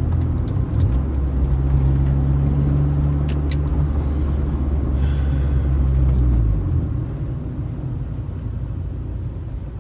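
Car engine and road noise while driving in traffic: a steady low engine drone that drops away about two-thirds of the way through, with one short sharp click near the middle.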